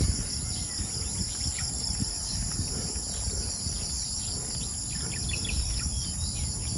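Steady high-pitched chorus of insects trilling in the grass, with a few faint bird chirps.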